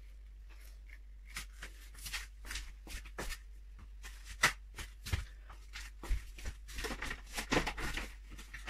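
Irregular light knocks and rustles of kitchen items being handled, with the sharpest knock about four and a half seconds in and the rustling growing busier near the end.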